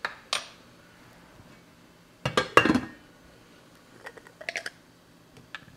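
Kitchen utensils and containers being handled: a single sharp click, then a loud rattling clatter about two seconds in, and a few lighter clinks a little later.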